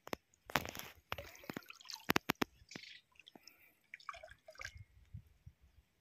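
Shallow pond water splashing and dripping in short sharp bursts, most of them in the first two and a half seconds and sparser after, around a fishing line with a freshly hooked murrel (snakehead) on it.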